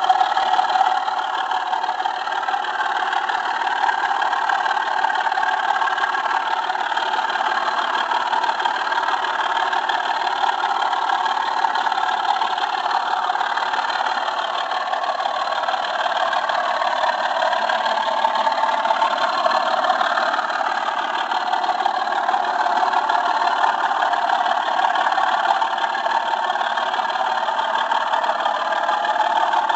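Model railway train running steadily along the track, a continuous whirring and rolling of its electric motor and wheels on the rails, heard from on board.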